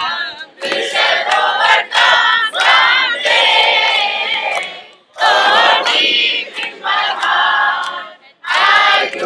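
A crowd chanting slogans loudly together, with hand claps. The chant comes in long phrases of a few seconds each, broken by short pauses.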